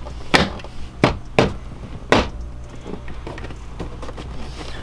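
Plastic lower dash trim panel of a Ford Mustang being knocked into its clips by hand: about five sharp knocks in the first two and a half seconds, then they stop.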